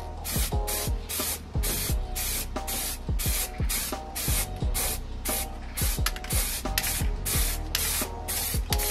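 Aerosol spray paint can spraying base coat onto a car's front wing in short bursts, about two a second.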